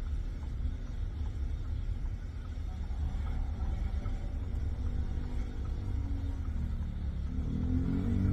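Steady low road and engine rumble inside a moving car's cabin. Near the end a low pitched hum swells up over it and becomes louder.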